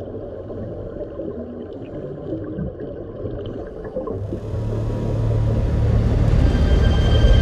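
Low, muffled underwater rumble, then dark soundtrack music swelling in after about four seconds with steady held tones growing louder.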